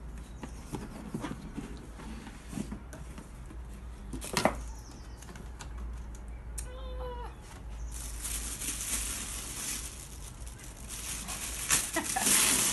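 Paper rustling and a cardboard box being handled as it is opened, with a sharp click about halfway through. From about two-thirds of the way in, tissue paper crinkles and rustles steadily, growing louder toward the end, and a short pitched sound is heard just before the rustling picks up.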